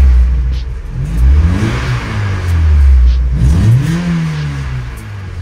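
Mazda MX-5 Miata's four-cylinder engine, warm, revved up twice and let fall back toward idle.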